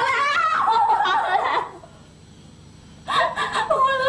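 A woman crying out and sobbing in high, wavering wails: one long bout, a short pause of about a second, then crying again near the end.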